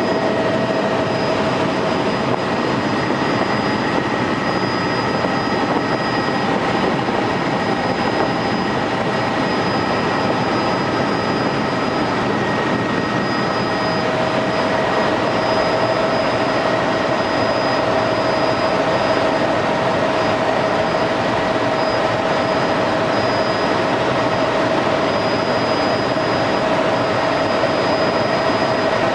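Helicopter in flight: a loud, steady drone of engine and rotors with a constant high whine over it, unchanging throughout.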